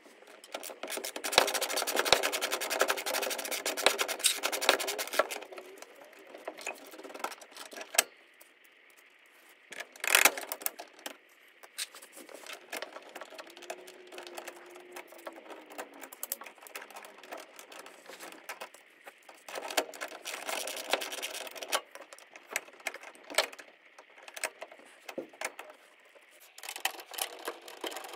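Ratchet wrench clicking in several bursts as bolts are run in, the longest burst in the first few seconds, with scattered metal clinks of tools and parts between.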